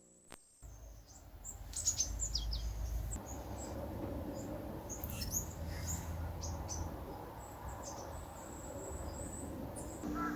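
Small birds chirping, with short high chirps scattered throughout after a moment of silence at the start, over a faint low rumble.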